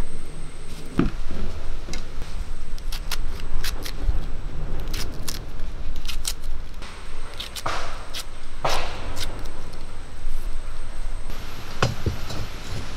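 Knife slicing green chillies held in the hand, a scatter of short sharp clicks as the blade cuts through, over a steady low rumble. Near the end a heavier knock as an iron kadai is set onto the brick stove.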